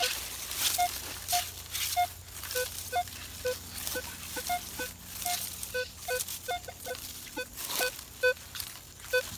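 Minelab Equinox 800 metal detector giving short beeps at two or three different pitches as its coil is swept over the ground, the beeps coming more often in the second half, over the rustle of the coil and feet brushing through ferns and dry leaves.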